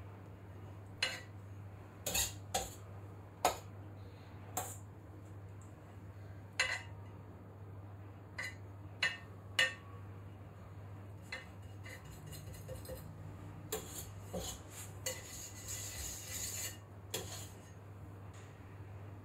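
Steel cake scraper and palette knife clinking and tapping against a metal cake turntable and bowl while frosting is smoothed: sharp clinks about nine times in the first ten seconds, then lighter taps and a short stretch of scraping near the end. A low steady hum runs underneath.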